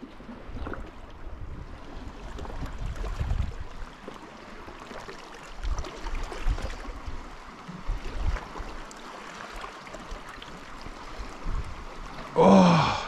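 Sea water lapping against granite rocks, with wind buffeting the microphone in uneven gusts. Near the end comes one brief, loud pitched sound.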